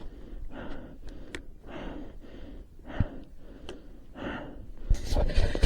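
A man breathing hard, one breath about every second. There is a single knock about three seconds in and louder rustling and handling noise near the end.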